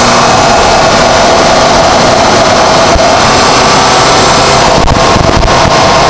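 VW Golf GTI's turbocharged 2.0-litre four-cylinder engine running loud through an APR Carbonio intake while driving, with a thin, high, steady turbo whistle over it. Around five seconds in the sound briefly breaks up and dips.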